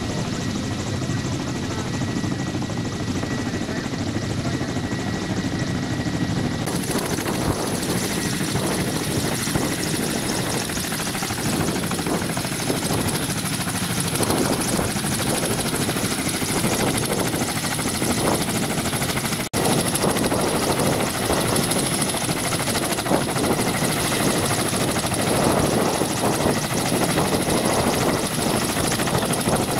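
Ka-27PS helicopter running on the ground: its twin turboshaft engines whine steadily and its coaxial rotors beat. The sound grows fuller with a high whine from about seven seconds in, and it cuts out for an instant near the middle.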